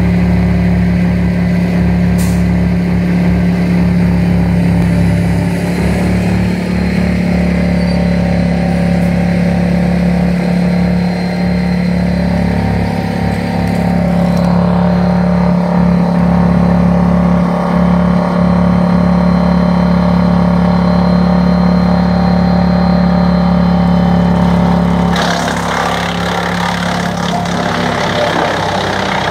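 Tractor engine running hard to drive a trailer-mounted wood chipper, a steady loud drone. Near the end a rougher, noisier sound joins it as the crane grab feeds a bundle of pruned branches into the chipper.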